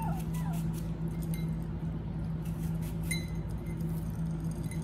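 Light clinks and ticks of a utensil and small ceramic saucers as pets eat from them, over a steady low hum. A couple of short high squeaks come near the start.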